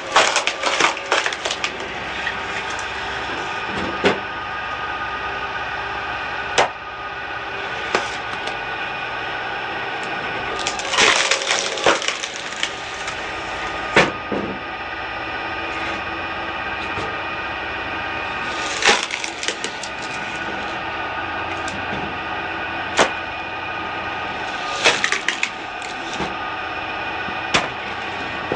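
Screw-type cone log splitter driven by a 7.5 kW low-speed electric motor, running with a steady hum while logs are pushed onto its spinning threaded cone. The wood splits with sharp cracks and splintering about every two to four seconds.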